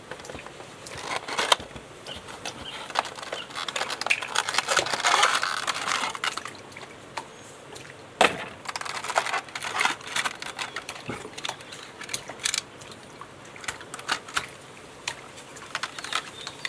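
Action-figure packaging being handled and opened by hand: crackling and rustling with scattered sharp clicks.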